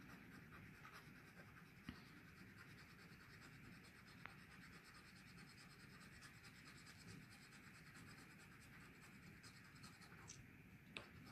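Faint, steady scraping of a coin rubbing the silver coating off a scratch-off lottery ticket, with a couple of light clicks about two and four seconds in.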